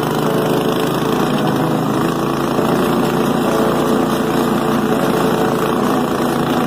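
Go-kart's 169cc, 6.5 hp Subaru single-cylinder engine running steadily as the kart drives along.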